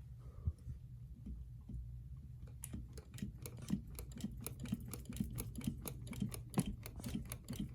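Ceiling fan running with a low hum and a regular ticking, about four ticks a second, that sets in about three seconds in. The owner suspects the ticking comes from the loose screws holding the motor housing.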